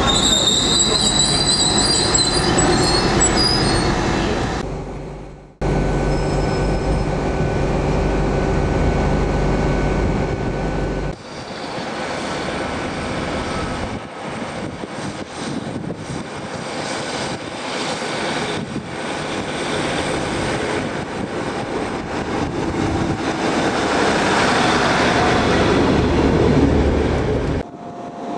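Trains running at a station, in several short clips: a Transport for Wales multiple unit pulls away with a high whine rising in pitch for the first few seconds, then the steady rumble of diesel multiple units, among them a Class 150 coming in, which grows louder toward the end.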